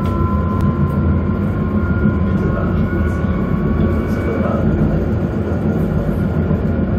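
Tatra KT4D articulated tram heard from inside while riding, a steady rumble of wheels on rails with a thin high whine running over it.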